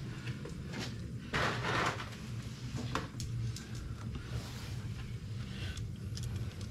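Light clicks and rattles of a hand tool working at the radiator hose under the hood, with a short rustling rush about a second in, over a steady low hum.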